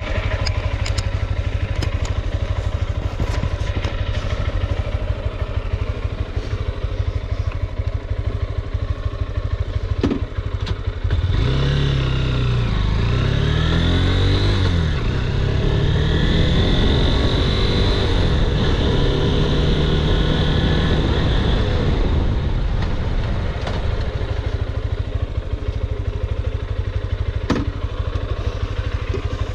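Honda CB200X's single-cylinder engine running under way, with a steady rush of riding wind. From about a third of the way in to two-thirds through, the engine note climbs and drops several times as the bike accelerates through the gears.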